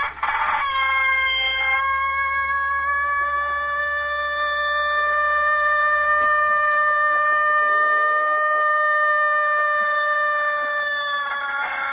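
A rooster's crow, edited so that it holds one unbroken, steady note for about ten seconds. It begins with a short squawk and drops away near the end.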